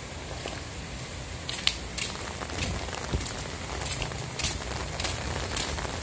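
Strong wind gusting, with a low rumble of wind on the microphone and scattered light ticks and crackles throughout.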